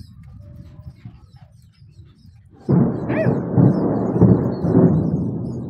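Thunder from a nearby lightning strike: a sudden loud clap about two and a half seconds in, then a rumble that slowly fades.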